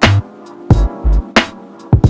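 Background music: a programmed drum beat with a heavy kick drum and sharp snare-like hits, over held chords.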